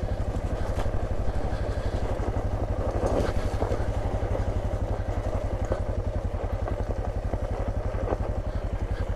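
Suzuki DR650's single-cylinder engine running at a steady, even, fast beat, with a couple of light knocks mixed in.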